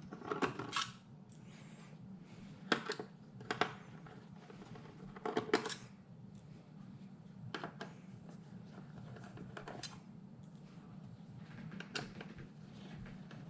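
Scattered small clicks and metallic taps, about seven over the stretch, as a Phillips screwdriver takes out the screws holding a metal cover over a computer's motherboard. A low steady hum runs underneath.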